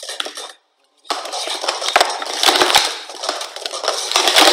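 Plastic sport-stacking cups clattering rapidly as they are stacked up and knocked down on a stacking mat. The clatter starts about a second in, after a brief pause.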